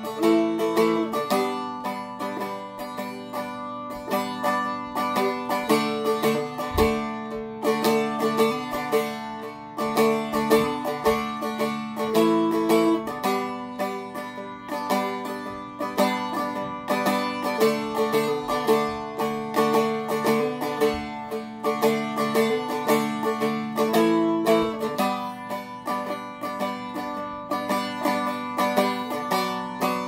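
Seagull Merlin M4, a four-string acoustic dulcimer-style instrument, strummed in a steady rhythm, changing chord every second or two.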